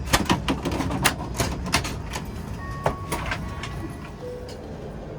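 Airliner cabin after arrival: a quick run of sharp clicks and knocks over the steady hum of the parked plane's systems, then a few short electronic tones about halfway through.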